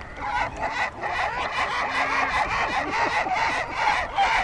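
A flock of gulls calling at once: many overlapping short squawks, several a second, with no pause.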